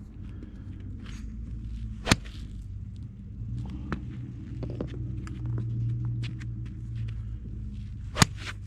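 Two sharp cracks of a golf iron striking the ball, about six seconds apart, over a steady low hum, with fainter clicks between them.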